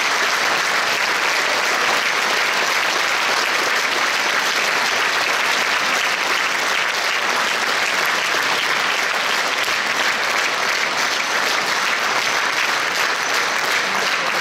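Large concert-hall audience applauding, a dense, even clapping at a steady level.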